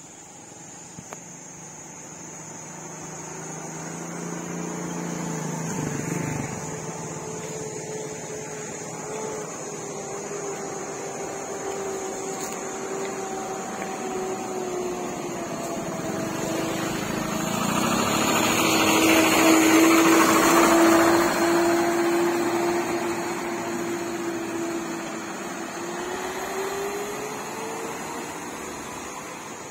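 Small automatic motor scooter running as it rides up the lane and passes close by, growing louder to a peak about two-thirds of the way through, then fading, its engine pitch dipping and rising again near the end.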